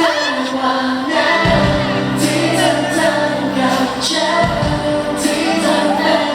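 A pop song performed live with singing over a band, with steady bass notes changing every second or two under long held sung notes.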